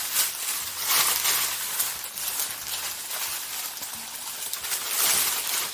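Packaging of a boxed collectible toy belt being handled and unwrapped: continuous rustling and crinkling, with louder crackles about a second in and again near the end.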